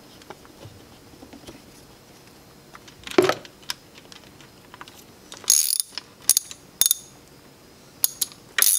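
Hand ratchet on an 8mm socket and extension clicking as it runs down the top bolt of an oil filter housing refitted with a new gasket: one click about a third of the way in, then short runs of quick clicks in the second half.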